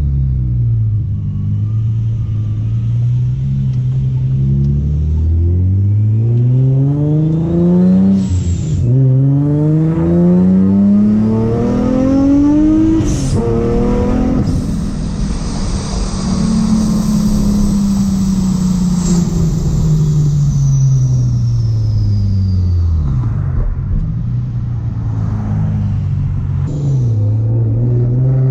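Supercharged Infiniti G35 V6 accelerating hard through two gear changes: the engine note climbs, drops at each shift with a sharp blow-off valve hiss, and climbs again. A faint high supercharger whine follows the revs. Then the revs fall away as the car slows, with a short rev blip and a low steady engine note near the end.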